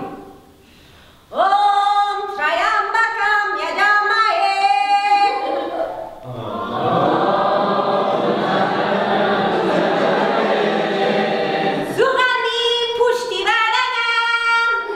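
A woman singing unaccompanied, a chant-like solo melody, after a brief pause at the start. A group of voices sings together in a dense chorus through the middle, and her solo voice returns near the end.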